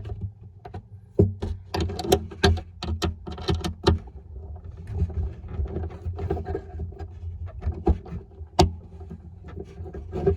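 A screw being tightened into the controller mount inside an acoustic guitar's sound hole: irregular clicks and knocks, thickest in the first few seconds, over a steady low hum.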